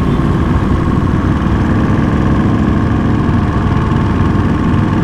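A sport motorcycle's engine running steadily at an even, moderate pace, mixed with the engines of a large pack of motorcycles riding around it on the track.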